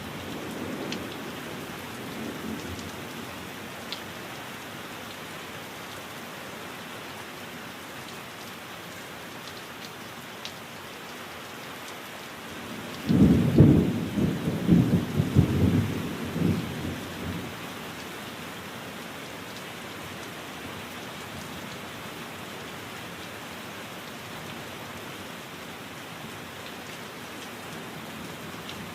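Steady heavy rain falling, with a burst of rolling thunder about halfway through, lasting some four seconds.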